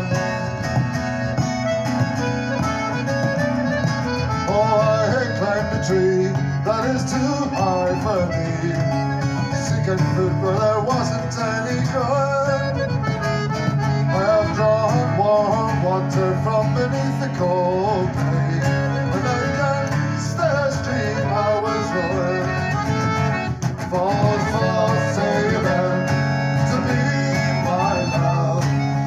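Celtic folk trio playing an instrumental tune, the accordion carrying the melody over strummed acoustic guitar and a hand-held frame drum.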